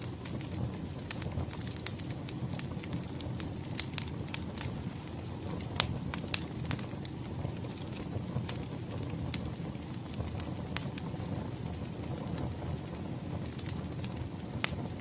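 Wood fire crackling, with sharp pops scattered over a steady low rumble, most of the pops in the first half.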